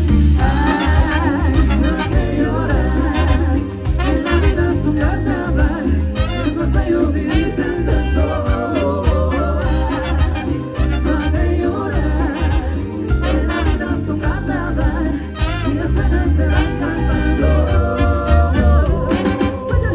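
Live band playing upbeat Latin dance music, with a steady bass beat and voices or horns carrying the melody.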